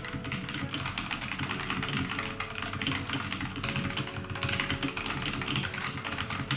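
Fast, continuous typing on a computer keyboard: a dense clatter of keystrokes.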